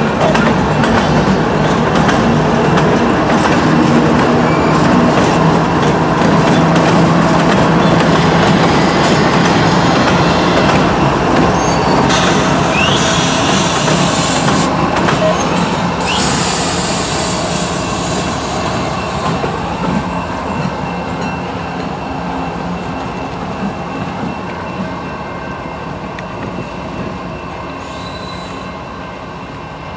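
Union Pacific freight train rolling slowly past: steel wheels clattering over the rail joints, with squeals of wheel on rail about halfway through. Then the diesel locomotives come by and the sound fades as the train moves off.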